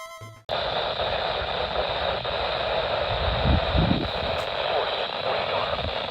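Radio static: a steady hiss from a radio receiver, starting about half a second in as music cuts off. A couple of low thumps come between three and four seconds in.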